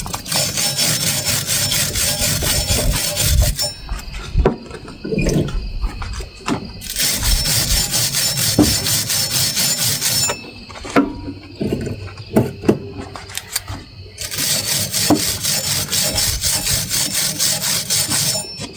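Electric welder arc crackling steadily in three runs of about three to four seconds each, laying weld beads that fix a new sprocket hub onto a golf cart's rear shaft. A few light knocks fall in the pauses between runs.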